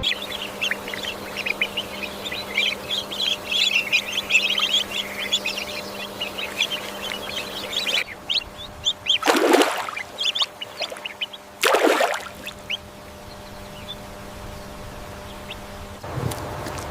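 Many small birds chirping and twittering together for about eight seconds, then two loud drawn-out bird calls about two seconds apart, with a steady faint hum underneath.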